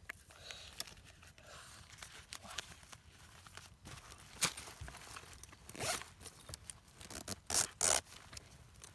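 Zippers on a fabric waist bag being pulled open in several short zips, the loudest cluster near the end.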